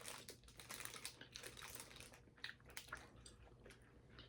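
Faint crinkling of a candy packet being handled, with scattered small clicks and ticks.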